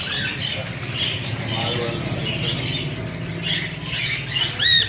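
Many caged cockatiels and other small parrots chirping continuously, with one loud call that rises and falls in pitch near the end.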